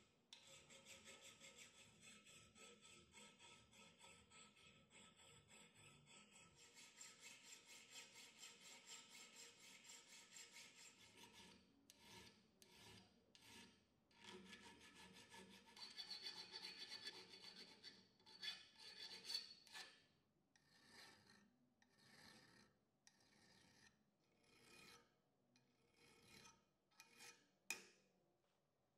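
Faint rasp of a flat hand file on a steel bolt held in a bench vise: quick, continuous strokes for the first ten seconds or so, then slower, separate strokes with short pauses, and a sharp click near the end.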